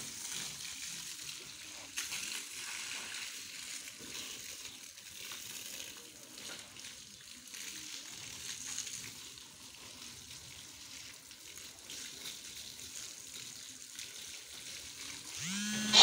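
Steady hiss of a jet of water spraying and splashing against a backhoe loader's rubber tyre and steel bodywork.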